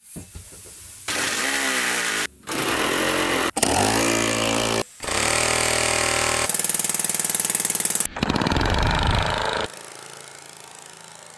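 Small compressed-air piston engines running fast in a series of short clips with abrupt cuts between them, their running tone shifting in pitch as their speed changes, one of them a very fast, even ticking. About ten seconds in the sound drops to a much quieter background.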